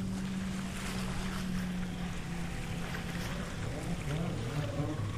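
A boat motor hums steadily, then from about four seconds in its pitch wavers up and down as the throttle changes, over wind on the microphone and small waves on the shore.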